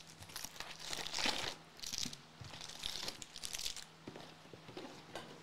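Foil-wrapped 2022 Bowman Jumbo trading card packs crinkling as they are handled and stacked, in several short bursts.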